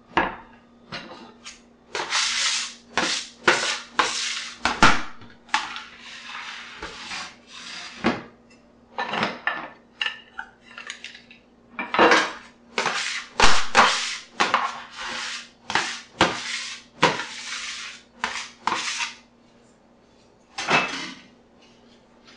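Metal bench scraper scraping across a stainless steel worktop in repeated short strokes, about two a second, clearing it of flour and dough scraps. A sharp knock starts the run.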